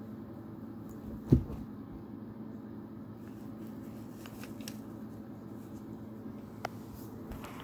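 Light rustling and clicks of a cat pawing and rubbing against a tote bag of hard plastic panels, with one dull thump about a second in and a single sharper click near the end, over a steady low hum.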